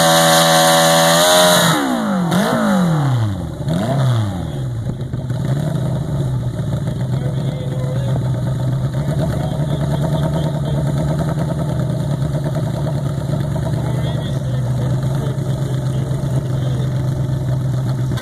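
Small single-cylinder engine of a modified pulling lawn tractor held at high revs, then let off about one and a half seconds in. The revs fall away in a few dipping swoops and settle into a steady idle.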